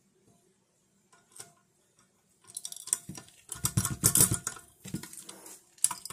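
Metal mounting-bracket parts and small hardware rattling and clattering as they are handled, starting about two and a half seconds in, with a loud run of knocks and rubbing in the middle and a few more clanks near the end.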